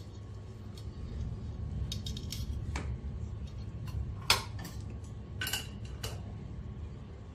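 Slotted metal spoon clinking and scraping against a metal pot while spreading a layer of rice: a few sharp clinks, the loudest about four seconds in, over a low steady hum.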